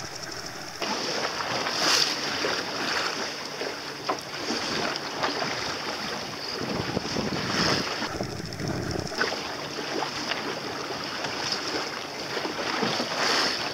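Wind on the microphone and water splashing against a small boat's hull while it is underway on choppy sea. The noise swells and eases every few seconds.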